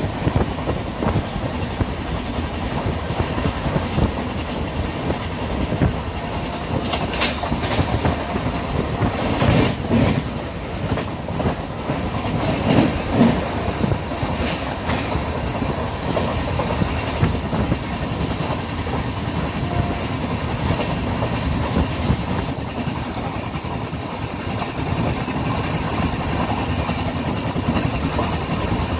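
Express train running along the track: a steady rumble with wheels clattering over rail joints, and a few louder clacks between about seven and fifteen seconds in.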